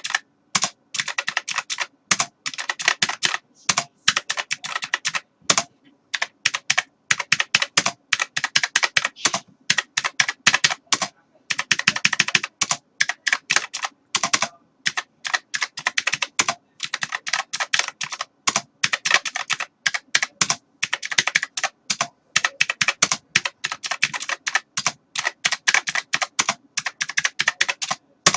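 Typing on a computer keyboard: rapid runs of key clicks broken by short pauses.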